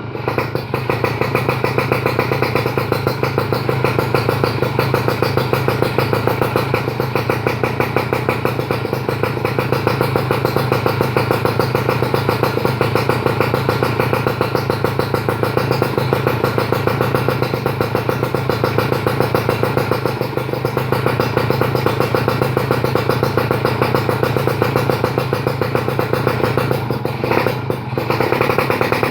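Kawasaki KR150 two-stroke single-cylinder engine running steadily through a custom stainless-steel expansion chamber and a Tyga aluminium silencer, with a fast, even firing beat. It dips briefly near the end.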